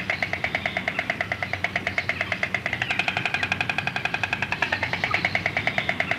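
White stork clattering its bill at the nest: a rapid, even wooden rattle of the mandibles snapping together. The clatter grows fuller for a second or two in the middle.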